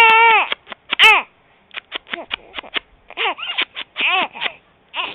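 A three-month-old baby crying in a coughing style: a loud held wail breaks off, then comes a string of short, choppy, cough-like bursts and brief falling cries.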